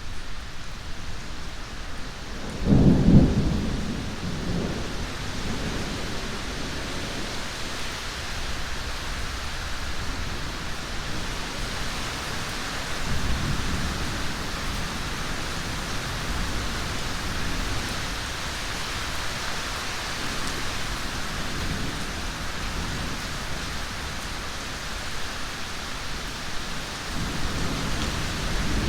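Thunderstorm: steady heavy rain with a loud clap of thunder about three seconds in that rumbles away over several seconds. Fainter rolls of thunder come around halfway and near the end.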